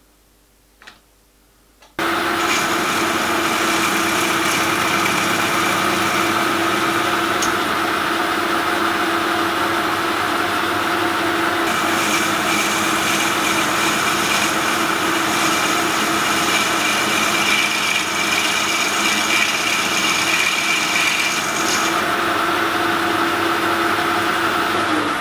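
Metal lathe starting suddenly about two seconds in and running steadily as its cutting tool turns down a model locomotive dome casting. A few light clicks come before it starts.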